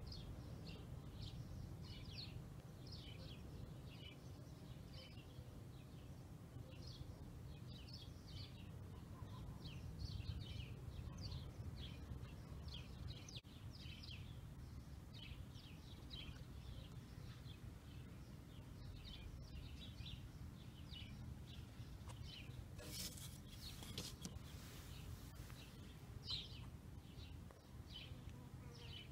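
Faint high chirping calls, repeating unevenly a few times a second, over a steady low background rumble. A brief rustle about 23 seconds in.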